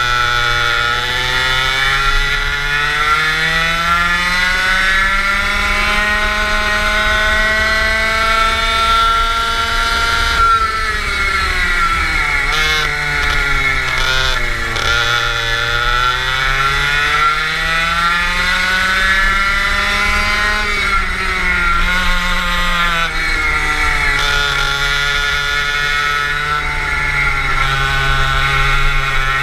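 Go-kart engine at racing speed, its pitch climbing steadily along each straight and dropping sharply as the kart slows for a corner, twice: about a third and about two-thirds of the way through.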